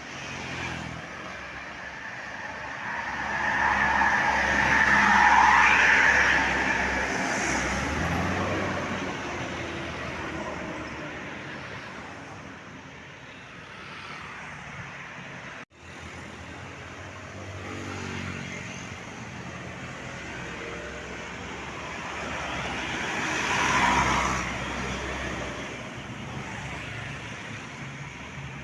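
Road traffic passing close by: a steady rush of engines and tyres that swells twice as vehicles go past, the first and loudest pass about five seconds in and another near the end. The sound cuts out for an instant about halfway through.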